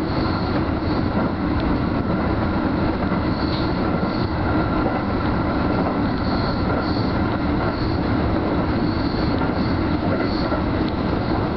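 Keio Line electric commuter train running at speed, heard from inside the lead car: a steady rumble of wheels on the rails, with a faint high squeal coming and going.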